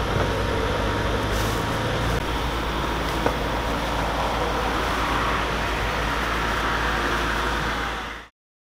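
Steady street background noise with a traffic-like hum and a single click about three seconds in, fading out shortly before the end.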